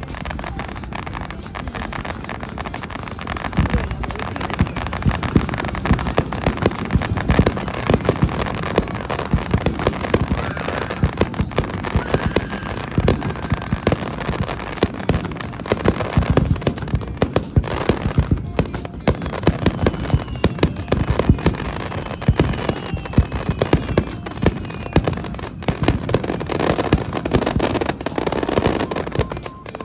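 Fireworks display, with shells bursting in rapid, overlapping succession: a continuous run of sharp bangs and crackles.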